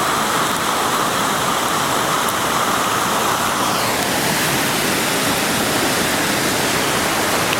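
Floodwater rushing, a steady running-water noise; its brighter upper part fades about four seconds in.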